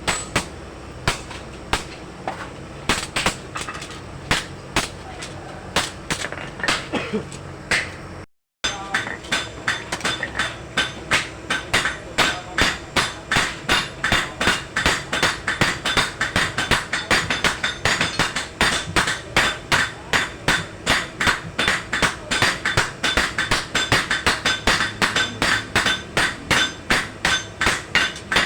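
Blacksmith's hammer striking steel on an anvil while forging a dagger blade, each blow ringing. The blows come irregularly at first. After a brief break about a third of the way in, they settle into a steady, fast run of about two to three a second.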